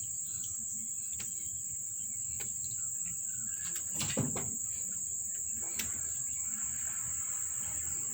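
Steady high-pitched insect trill throughout, with a few faint clicks and one brief louder knock about four seconds in.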